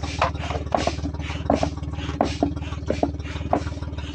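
Foot-operated bellows pump being stepped on over and over to inflate a rubber boat, with short repeated puffs of air and plastic creaks. A steady engine hum runs underneath.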